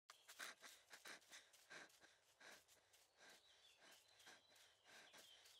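Near silence with faint, irregular little clicks and crackles, several a second at first and then sparser, and a faint thin high chirping in the second half.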